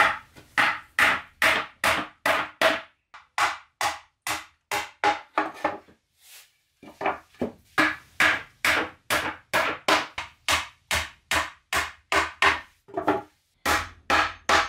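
A hand tool striking wood over and over at a steady pace of about two to three blows a second, each blow ringing briefly. The blows pause for about a second midway, then resume.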